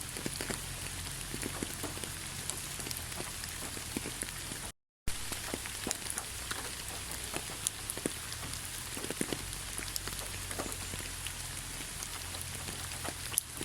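Steady rain with scattered individual drops pattering, cutting out completely for a split second about five seconds in.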